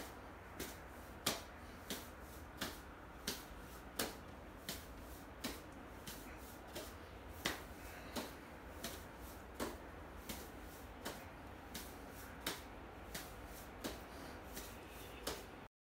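A Shaker shoulder-training implement passed from hand to hand, with a sharp slap each time it lands in a palm, about every two-thirds of a second. The slaps stop abruptly near the end.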